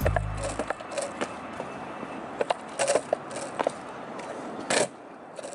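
Loaded Icarus bamboo longboard deck creaking and cracking under a rider bouncing on it, a string of short irregular cracks and clicks as it flexes. It is the noise that makes the flexy deck feel as if it is about to break.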